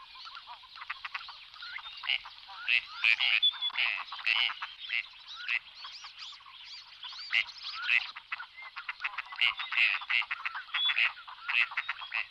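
Gadwall ducks calling: a continual string of short, croaking calls, coming in quicker runs toward the end.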